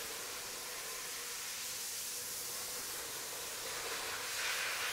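Steady hiss of workshop background noise, briefly louder near the end.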